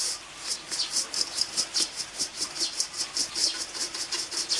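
Dry spice rub of salt, sugar and paprika being stirred briskly in a mixing bowl to break up lumps: a gritty swish repeated about five times a second.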